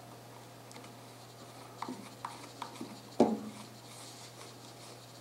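Model 1873 revolver's metal side plate being fitted back onto the frame: a few light clicks, then one louder knock as it seats.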